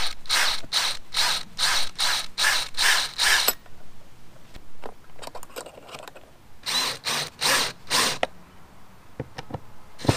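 DeWalt DCD777 cordless drill/driver with its clutch ratcheting on a screw: a run of sharp, rhythmic clicks about three a second, then after a pause of a few seconds a second, shorter run.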